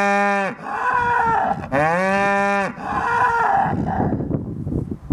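Cow mooing in long calls, each starting as a clear tone and turning rough and breathy, dying away near the end.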